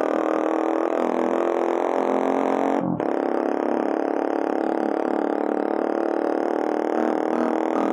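Bajaj Pulsar 220's single-cylinder engine through a custom full-system exhaust with the catalytic converter and dB killer removed, droning at a steady engine speed. It dips briefly about three seconds in, as when the throttle is closed for a gear change.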